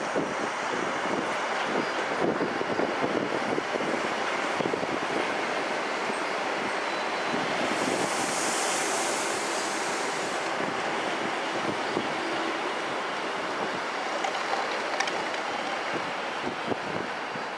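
Double-deck TER electric multiple units running past on the tracks, a steady rail rumble with wheels clicking over rail joints. A high hiss rises over it about eight seconds in and stops a few seconds later.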